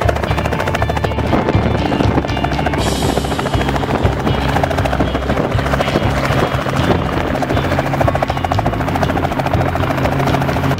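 Helicopter in flight: steady rotor and engine noise with a fast, even beat, heard together with background music.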